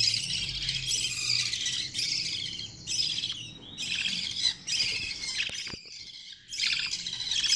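Budgerigar chicks giving raspy, rapidly pulsed begging calls in repeated bursts at feeding time, with a short break about six seconds in.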